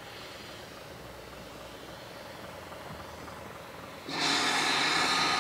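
Steam escaping from GWR 5700 class pannier tank 5786: a loud, steady hiss that starts suddenly about four seconds in, over a faint background.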